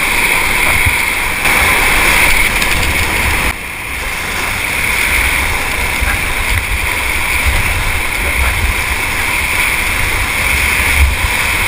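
Whitewater rapids rushing loudly and steadily around an inflatable kayak as it runs the rapid, with a low rumbling buffet underneath; the rush dips briefly about three and a half seconds in.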